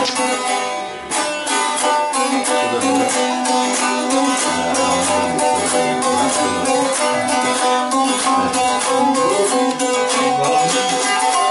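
Azerbaijani ashug saz played solo, strummed rapidly in a quick, even rhythm over a steady ringing drone.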